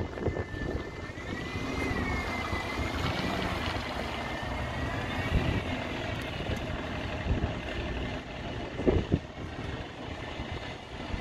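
Large road or rail vehicle running, a low engine rumble with a thin high whine that holds one pitch and then wavers up and down before fading. There are a couple of short low thumps about nine seconds in.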